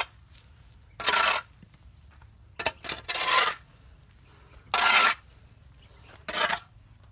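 Steel shovel scooping and tossing decomposing chicken manure, its blade scraping along the hard floor about five times, each stroke a short rasping scrape. The pile is being turned and mixed so that its heat escapes.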